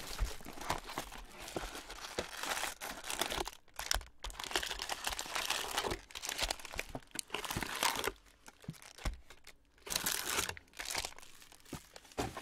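Clear plastic shrink-wrap crinkling and tearing as it is stripped off a trading-card hobby box, with the cardboard box opened and card packs handled. The rustling comes in irregular spurts with sharp little cracks, easing off briefly about four seconds in and again around eight to ten seconds.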